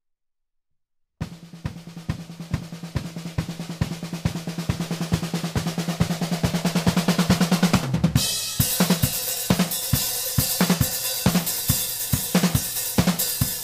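A 1967 Ludwig Hollywood drum kit with a 1972 Ludwig Coliseum snare drum being played. After about a second of silence, evenly spaced drum strokes build steadily louder. At about eight seconds cymbals and bass drum come in as a full-kit beat.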